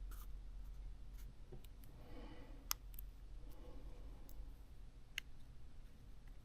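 A few faint, sparse clicks and light handling of small parts as a Pixel XL's internal components and ribbon connectors are pressed back into place during a repair.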